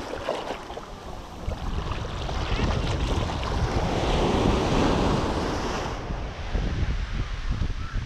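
Small ocean waves breaking and washing up the sand at the waterline, swelling loudest midway as a wave comes in and spreads, with wind buffeting the microphone.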